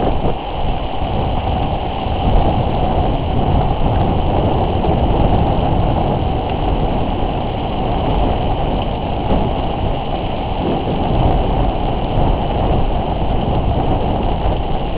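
Strong storm-squall wind blowing across the microphone: a loud, steady, rumbling rush that rises and falls a little.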